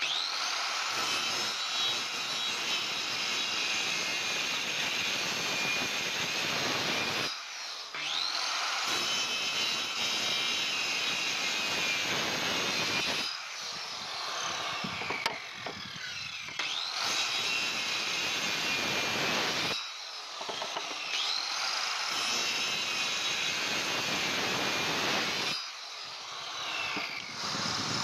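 Handheld electric circular saw cutting into a timber beam for a long tenon: the motor whines up to speed and runs through the wood with a steady high whine, then is released and winds down, four times in a row, each time starting up again.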